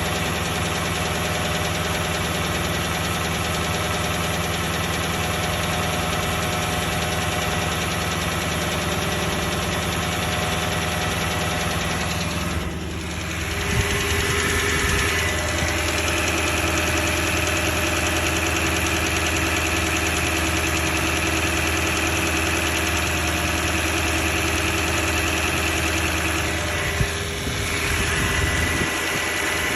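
Toyota 1UR-FE V8 engine idling with an engine knock, which the owner finds more distinct the thinner the oil gets. About thirteen seconds in the sound dips briefly, and a steady high whine joins it until near the end.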